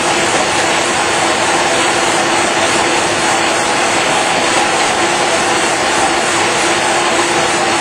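Kase Equipment nine-colour dry offset cup and pail printing machine running, a loud, even mechanical noise with a steady hum through it.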